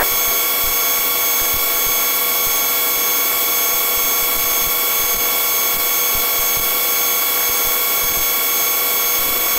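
Police helicopter's turbine engines and rotors running steadily in flight, heard inside the cabin as an even noise with several constant high whines.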